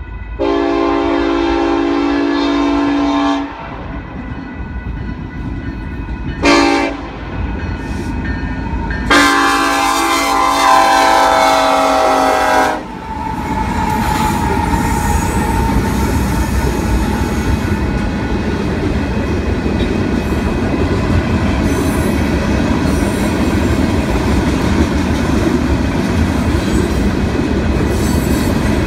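Diesel freight train sounding its multi-chime air horn for a road crossing: a long blast, a short one, then another long blast. The locomotives then pass close by with their engines rumbling, followed by the steady rolling clatter of freight-car wheels on the rails.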